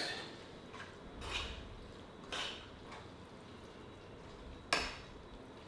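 A fork scraping and clicking against a bowl while stirring pasta: three short, faint scrapes, the sharpest near the end.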